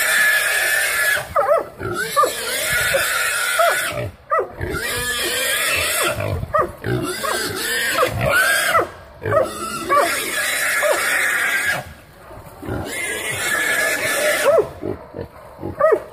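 Young wild hogs caught by hog dogs, squealing over and over in long, high-pitched screams with short breaks between them.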